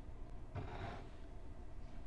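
A single shuffling footstep, a shoe scuffing along the floor for about half a second, a little after the start, over a low steady hum.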